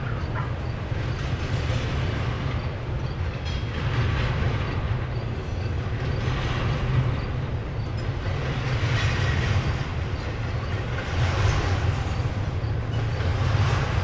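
Double-stack intermodal freight cars rolling past: a steady low rumble of wheels on rail, with a swell of wheel noise about every two and a half seconds.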